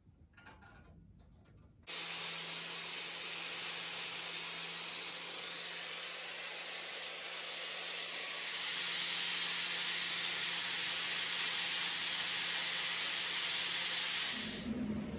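A steady, loud hiss from a shop tool, with a low hum under it. It starts suddenly about two seconds in and stops shortly before the end.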